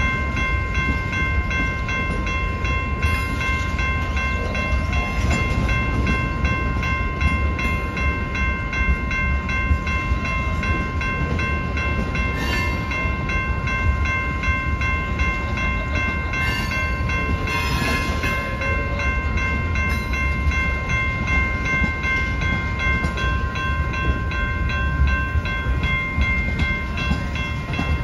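A train running past with a steady low rumble, over a continuous ringing tone and an even, fast ticking.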